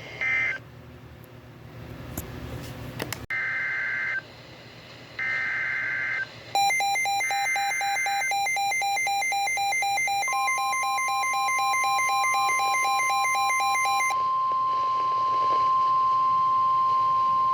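NOAA Weather Radio alert signalling for a new warning. Short warbling digital data bursts come first, three of them a couple of seconds apart; these are the SAME header codes. A rapid electronic beeping joins in about halfway. A little past ten seconds in, the steady 1050 Hz warning alarm tone starts and holds.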